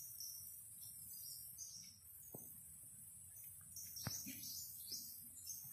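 Faint outdoor ambience: a steady high insect drone with repeated short high chirps over it, and a few soft clicks, the sharpest about four seconds in.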